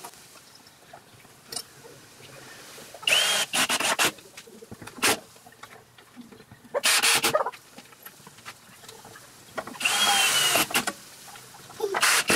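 Kobalt XTR 24-volt cordless driver running in four short bursts of under a second each, driving wood screws through a hairpin leg's steel mounting plate into a hardwood slab. Each burst carries a high motor whine.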